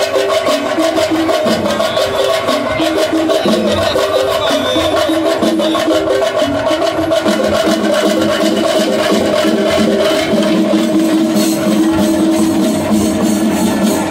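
Shinkari melam: fast chenda drumming and elathalam cymbals in a dense, driving rhythm, with a melody of held, stepping notes carried over the drums.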